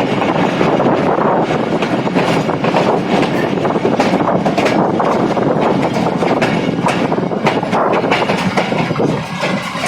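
Passenger train rolling on, heard from aboard: a steady rumble of the coaches with the wheels clicking and clattering over rail joints and points on the station approach.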